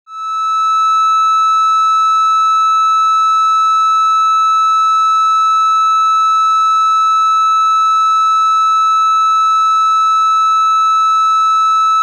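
Steady high-pitched 1.3 kHz test tone: a triangle wave played through an HCF4069UBE CMOS inverter wired as an audio amplifier with a 4.7 MΩ feedback resistor. The output is rounded and asymmetrically distorted, so it sounds as a buzzy tone with overtones rather than a pure one. It fades in right at the start and then holds unchanged.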